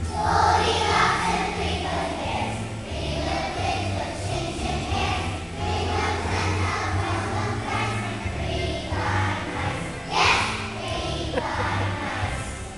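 A large group of young children singing together as a choir over musical accompaniment with a steady low pulse. A brief louder noise cuts across it about ten seconds in.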